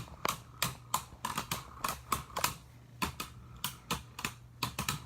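Two Beyblades, Maximus Garuda and Drain Fafnir, spinning in a plastic stadium and knocking together, with irregular sharp clicks several times a second.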